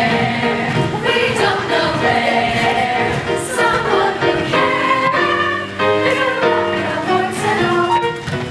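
A chorus of voices singing a show tune together, several notes sounding at once in harmony.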